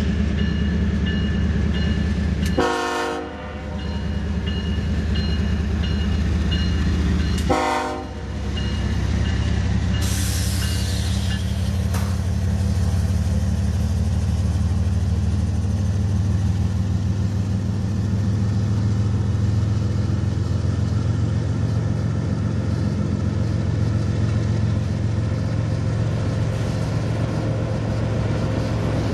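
A five-chime Nathan K5HL air horn on a Union Pacific GE Evolution-series locomotive sounds two short blasts about five seconds apart over a grade-crossing bell dinging. The locomotive then passes close by, and the autorack freight cars rumble steadily over the rails.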